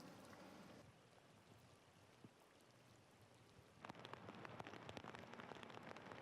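Faint rain falling, turning into a dense spatter of small drops hitting a surface about four seconds in.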